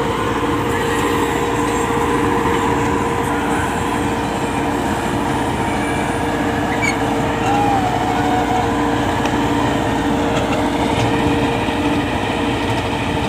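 Massey Ferguson 385 tractor's four-cylinder diesel engine running steadily under load while it drives a rear-mounted 60-blade rotavator churning through field soil.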